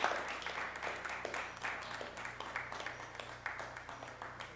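Small audience applauding, the dense clapping slowly thinning and getting quieter.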